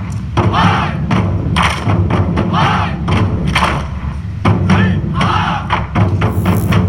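Background music with a steady thumping beat over a held low bass, with swelling shouted or sung sounds about once a second.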